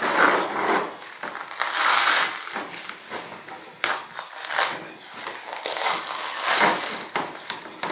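Plastic vacuum-bagging material crinkling and rustling as hands press and smooth it into a composite flap mold, in repeated swishes about every two seconds.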